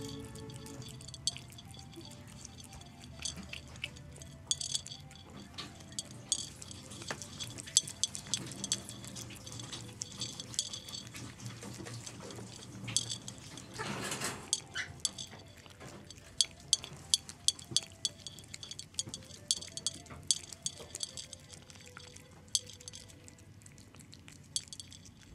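A cat eating from a ceramic dish: irregular sharp clicks and clinks as its teeth and tongue knock against the dish while it licks and chews, coming faster in the second half.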